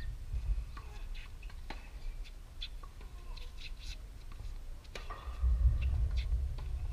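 Tennis ball struck by rackets and bouncing during a rally: a series of sharp pops, the loudest about five seconds in, over a low rumble of wind on the microphone.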